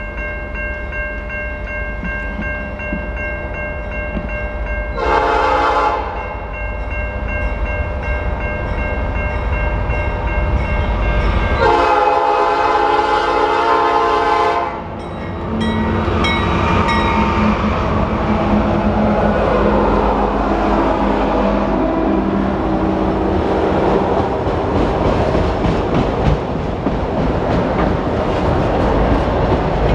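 CN freight train at a level crossing, with the crossing-signal bell ringing steadily. The diesel locomotive's horn sounds a short blast about five seconds in and a long blast about twelve seconds in. The locomotive then passes, and a train of autorack freight cars rumbles and clatters over the crossing.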